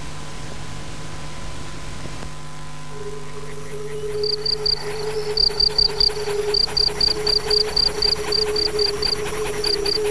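Crickets chirping: a run of short, high, evenly spaced chirps in clusters, beginning about four seconds in, over a steady low drone that enters about a second earlier.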